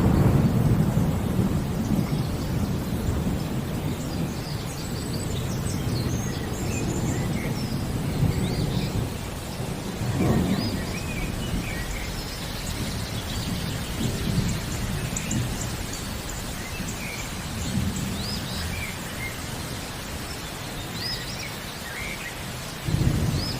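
Thunder rumbling over steady rain, with small birds chirping throughout. The loudest rumble is at the start and fades over the first several seconds. Shorter rumbles come about ten seconds in and again near the end.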